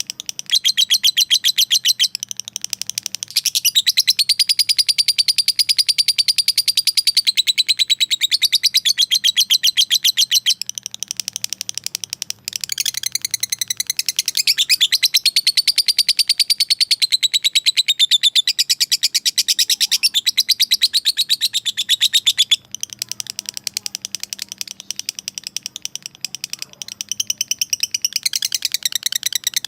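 Lovebird chattering in a long, rapid, shrill trill of quick repeated notes (the long 'ngekek' call). The runs break off briefly a few times.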